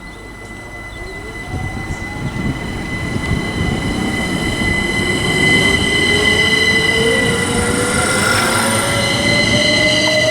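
Class 387 electric multiple unit pulling away from the platform, its traction whine rising steadily in pitch and growing louder as it accelerates, over a building rail rumble.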